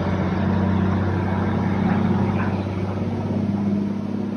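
Unimog truck's diesel engine idling steadily, a low, even drone.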